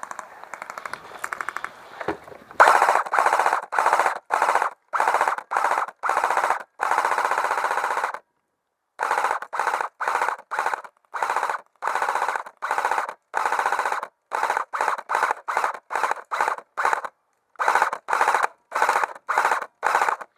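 Airsoft electric guns firing on full auto. The first couple of seconds are fainter rapid fire. Then some two dozen short, loud bursts follow, each under a second, with abrupt silent gaps between them.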